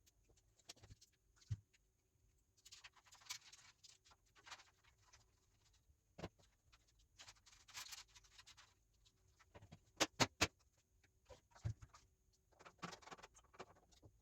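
Rustling and scattered clicks from small hard objects being handled, with three sharp clicks in quick succession about ten seconds in.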